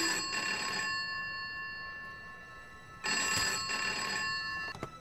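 Red rotary-dial telephone ringing: two rings about three seconds apart, each about a second long with the tone fading away after it. A sharp click comes just before the end.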